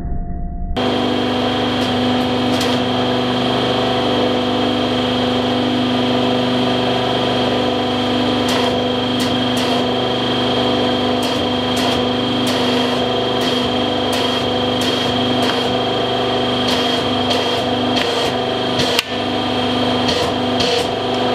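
Hydraulic press running with a steady hum and a high whine as its ram crushes a thick stack of paper. Sharp crackles and snaps from the creasing, splitting pages come more often in the second half.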